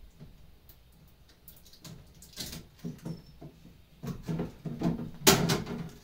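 Hands working inside an open mini fridge: a string of light plastic clicks and knocks, with a louder knock about five seconds in.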